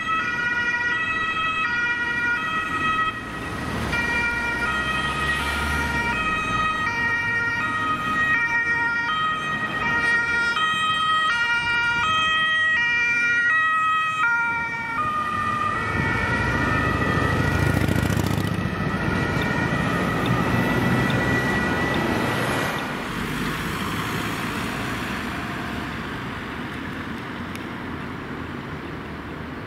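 German two-tone emergency sirens (Martinshorn) on ambulance and emergency-doctor vehicles, alternating between a high and a low note, with engine and traffic noise beneath. About halfway through the alternating pattern gives way to a steady held tone, which stops at about three quarters of the way through, leaving only road traffic noise.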